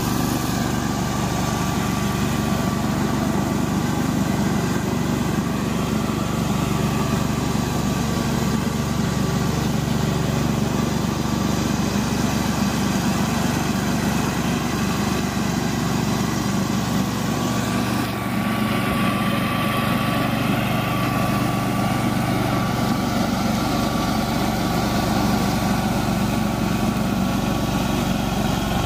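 Gasoline walk-behind mower engine running steadily under load while cutting overgrown, tall grass.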